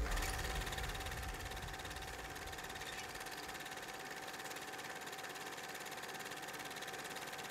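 Film projector running: a steady, fast mechanical clatter with a thin steady whine over it. A low rumble at the start dies away over the first two seconds.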